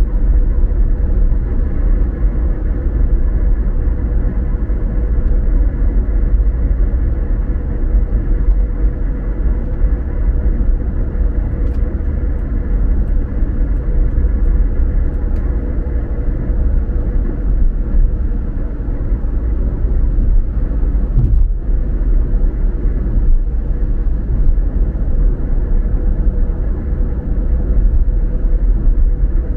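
Car driving along the road: a steady low rumble of tyres and engine, with a faint steady hum and a few faint ticks in the middle.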